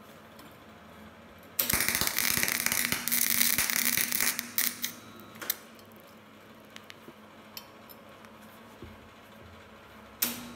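Gasless flux-cored wire welding arc on an old Elektra Beckum MIG/MAG welder. The arc crackles with a steady hum for about two and a half seconds, then spits out in a few short sputters, with one more brief burst near the end. The arc starts and breaks off because the wire feed is very irregular, first shooting too much wire and then too little.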